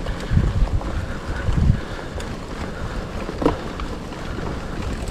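Wind buffeting an action camera's microphone while riding a mountain bike on a dirt track, over a steady noisy hiss. Two strong low gusts come in the first two seconds, and a sharp click about three and a half seconds in.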